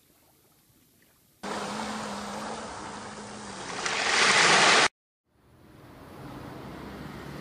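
Surf on a sandy beach: waves washing in, starting suddenly about a second and a half in and swelling as a wave breaks about four seconds in, then cut off abruptly. After a brief gap a steady rush of water fades back in.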